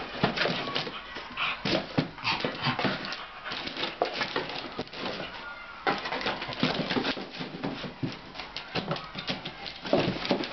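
Wire fox terrier rummaging in a cardboard box, with irregular rustling and crackling of packing paper and cardboard as it noses and paws through it.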